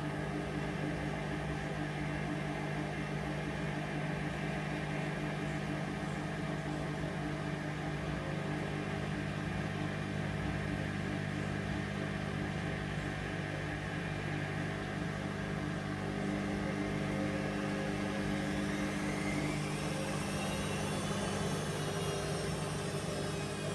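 Hoover Vision Dynamic washing machine spinning its drum, a steady motor hum with a whine that rises in pitch over the last several seconds as the spin speeds up.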